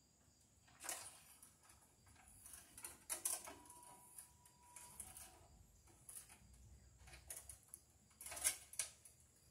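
Faint scraping and rustling of a ground wire being pulled and bent along the metal breaker panel box by hand, with a few louder scrapes about a second in, around three seconds in, and near the end.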